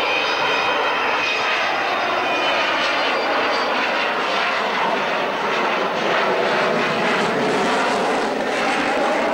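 Avro Vulcan bomber's four Rolls-Royce Bristol Olympus jet engines at display power as it banks low past: a loud, steady rushing jet noise.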